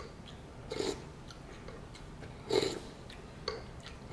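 Mouth noises of a person eating ramen noodles and broth: three short, noisy slurping and chewing sounds about a second apart, the middle one the loudest.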